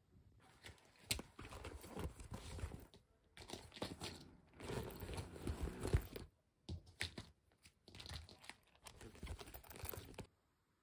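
Rustling and knocking of things being handled and packed into a black zip-top handbag: a wallet, cosmetics and plastic photocard holders, in several bursts with a couple of sharp clicks.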